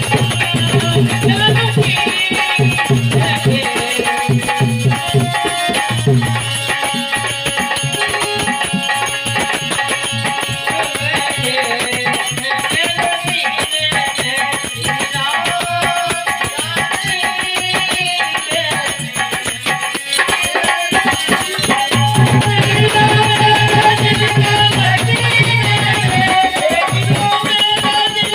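Live Indian devotional bhajan music: harmonium and electronic keyboard play the melody, a dholak drum keeps a quick even rhythm, and jingling hand percussion plays throughout. A strong low held drone sounds in the first few seconds, drops out for much of the middle and returns near the end.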